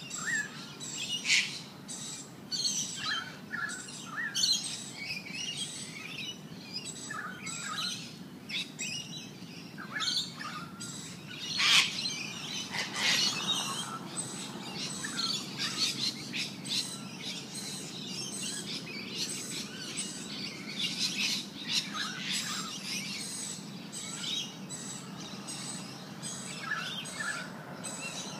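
Small birds chirping and calling, many short scattered calls, with a louder sharp call about twelve seconds in, over a steady low background hum.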